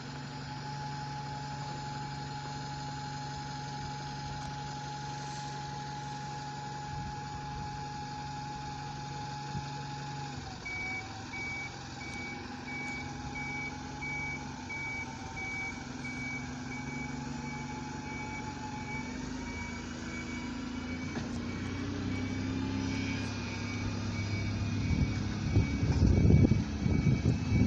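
Diesel buses idling at a bus station: a steady engine hum with a high whine over it. From about ten seconds in, a reversing beeper sounds evenly repeated beeps. Near the end a single-deck bus drives up, growing louder.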